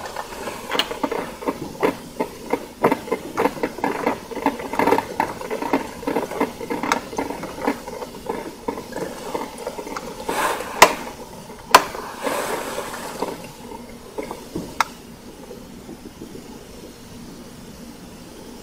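Krups 985 combination espresso and drip coffee maker brewing: water gurgling and popping in quick irregular pops as it boils through the heater, with short spurts of steam hiss about ten and twelve seconds in, settling to a faint steady hiss near the end.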